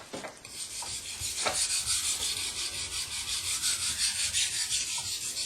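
Steel knife blade ground back and forth on a wet 1000-grit water stone in quick, even strokes, a gritty rasping hiss. The coarse stone is cutting the steel to grind chips out of the edge.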